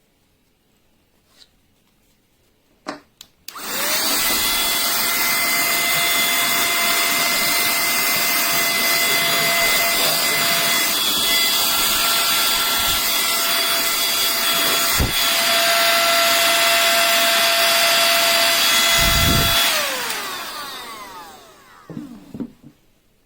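Battery-powered handheld mini car vacuum switched on with a click and running with a steady high whine for about sixteen seconds, with a couple of dull knocks from handling. It is then switched off and winds down with a falling pitch, followed by a few clicks.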